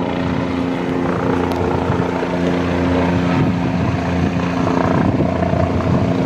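Helicopter coming in to land, a steady rotor and engine noise with a low hum, growing slightly louder as it descends toward the pad.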